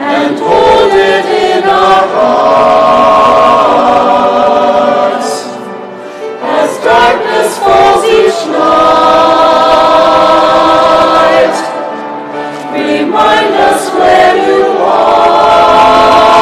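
Mixed church choir singing in harmony, holding long chords between phrases, with brief dips about six and twelve seconds in.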